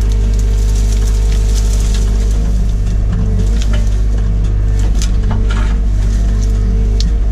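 Excavator's diesel engine running steadily under load, heard from inside the cab, with gorse branches cracking and snapping as the bucket rips into the brush, mostly in the middle.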